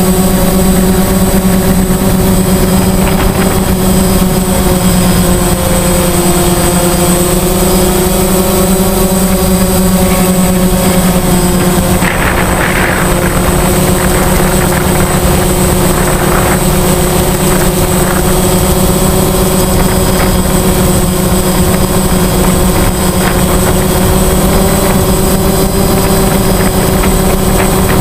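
DJI Phantom quadcopter's electric motors and propellers whining steadily in flight, recorded close up by the camera on the drone. The pitch drifts slightly up and down now and then.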